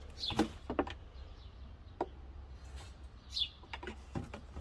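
A few sharp clicks and knocks of tools being worked at the brake bleed valve, over a steady low hum, with a bird chirping short falling calls twice.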